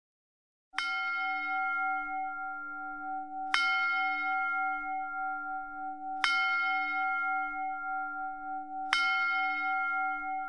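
A bell struck four times, evenly about every two and a half to three seconds. Each stroke rings on into the next, with a slow wavering pulse in its tone.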